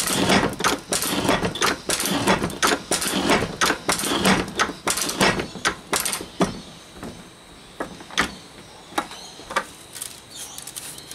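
Antique metal shaper running, its ram stroking back and forth as the tool takes a final cut across a steel plate, with a rapid clatter of metal clicks and knocks. About six seconds in the clatter thins to single sharp clicks roughly a second apart.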